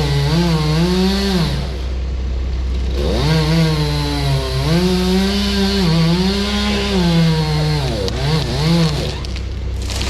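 Chainsaw running at high revs, its pitch sagging and recovering as it cuts. It eases off briefly about two seconds in and again around eight seconds. A steady low engine hum runs underneath.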